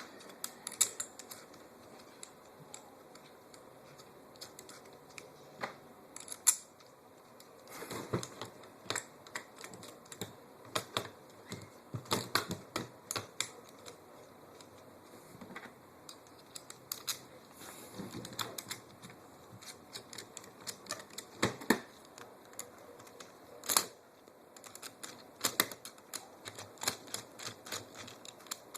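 Irregular small clicks, taps and knocks of metal parts being handled as a rail handguard is fitted onto an airsoft rifle and its screws are put in.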